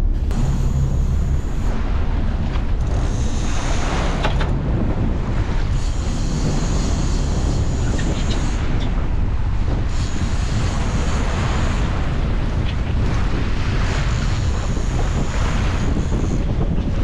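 Wind buffeting the microphone over the steady low drone of a sportfishing boat's engines and the rush of its wake and waves, the wind noise rising and falling every few seconds.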